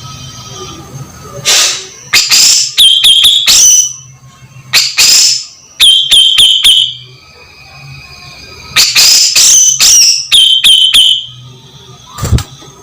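Grey-cheeked bulbul (cucak jenggot) giving loud, harsh, shrill calls in quick bunches of rapid notes, several bunches with short pauses between them.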